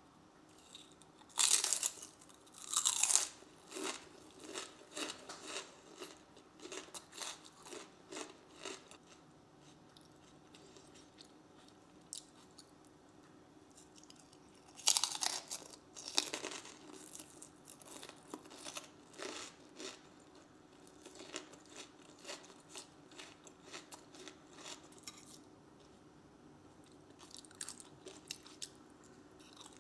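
A young child chewing and crunching crunchy food close to the microphone in irregular bites, with louder crunches about two seconds in and again around fifteen seconds.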